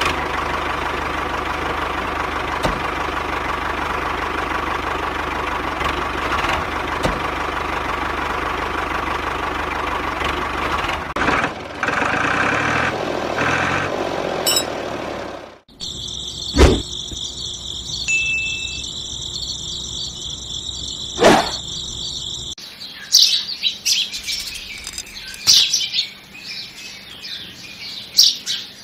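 Small electric DC motor of a homemade toy tractor whirring steadily as it drives, with two sharp knocks during a higher-pitched stretch after a cut. Birds chirp in the last several seconds.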